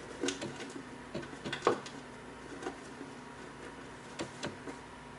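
Faint scattered clicks and rustles of a small plastic wire connector and its cable being handled and fed through a hole in a plywood board, with one sharper click about a third of the way in.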